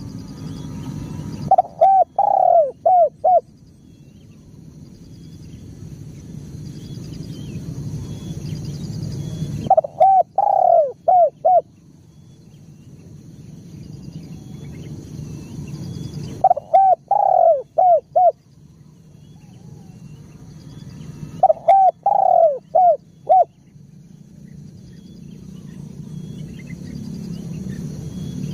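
Spotted dove singing its cooing song: four phrases of four or five quick coos each, a few seconds apart. Between the phrases a low background rumble swells and cuts off.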